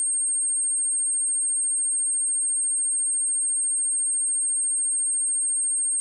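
A pure 8543 Hz sine-wave test tone: one steady, high-pitched whistle-like tone with no change in pitch or loudness.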